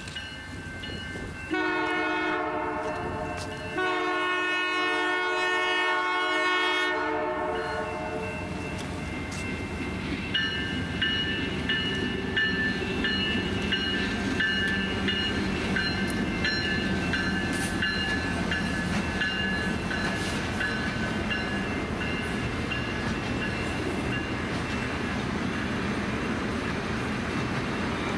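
Diesel locomotive horn on CPKC's Holiday Train sounding two blasts for a grade crossing: a two-second blast, then a longer one of about four seconds. The lit train's cars then roll past with a steady rumble and wheel clatter, over the high ringing of the crossing bell.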